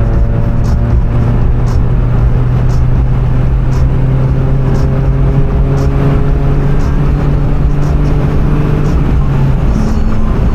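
Car driving with steady road and tyre noise, its engine note slowly rising as it accelerates and then dropping about nine and a half seconds in. A faint tick repeats about once a second.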